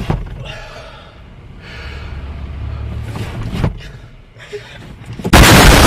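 A man's heavy, breathy gasps in a car, then about five seconds in a sudden, very loud burst of harsh noise.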